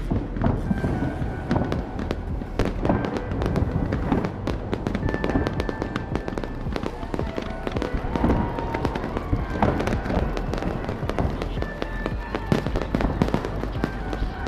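Fireworks going off in rapid, overlapping bangs and crackles, with music playing underneath.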